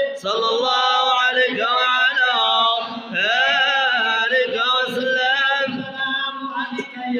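A group of men chanting a madih, a devotional praise song for the Prophet Muhammad, together and without instruments. The sung lines are long and wavering, with a short breath about three seconds in before the next phrase.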